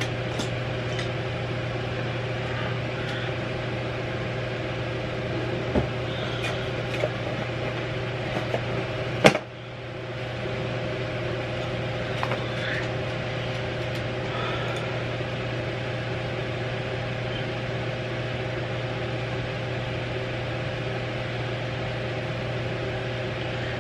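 Steady low electrical hum with a fainter higher tone above it, under a few faint taps and one sharp click about nine seconds in.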